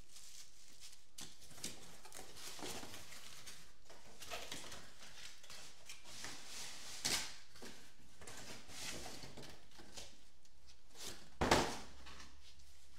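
Handling noises from unpacking generator accessories: scattered rustles and small clicks, with two louder knocks about seven and eleven and a half seconds in.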